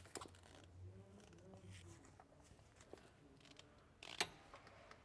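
Near silence: faint room tone, with one short sharp click about four seconds in.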